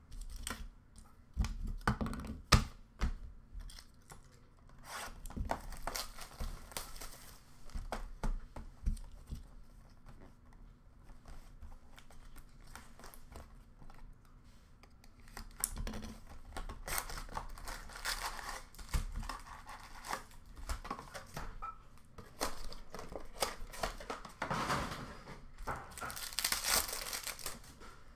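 Upper Deck Ice hockey card packs being torn open and their wrappers crinkled by hand, in uneven stretches of rustling with scattered sharp taps as packs and cards are handled; the loudest tap comes about two and a half seconds in.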